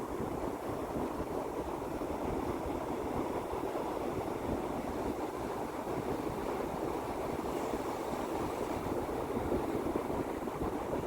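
Sea waves washing in a steady, continuous rush of water without distinct separate breaks.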